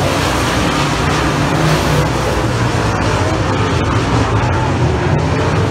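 A pack of dirt-track race cars running at speed around the oval, their engines blending into one loud, steady noise.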